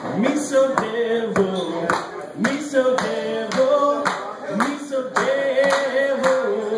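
A man singing wordless, swooping notes without the guitar's chords, over sharp rhythmic claps or knocks about two or three a second. Near the end he holds a wavering note.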